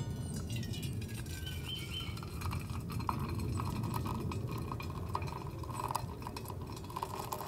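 Hot coffee pouring in a steady stream from a stainless steel stovetop percolator into an insulated stainless mug, splashing as the mug fills.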